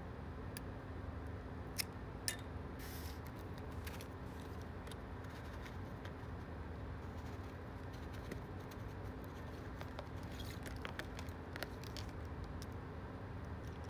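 Small clicks and light crinkles of hard plastic blister packaging and small metal screwdrivers being handled, with two sharper clicks about two seconds in and a cluster of clicks near the end, over a steady low hum.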